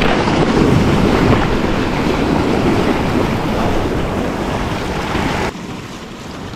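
Sea surf washing loudly, with wind buffeting the microphone; the noise eases slowly, then drops off suddenly about five and a half seconds in.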